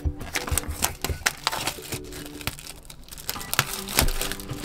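Cardboard smartwatch box being opened by hand: a run of sharp clicks, scrapes and crackles as the seal stickers are picked and peeled and the packaging is handled.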